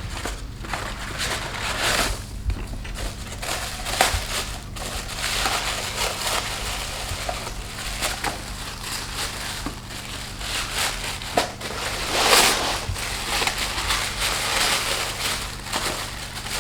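Packaging crinkling and rustling as gift accessories are unpacked by hand, in irregular handling noises with a louder crumple near the end.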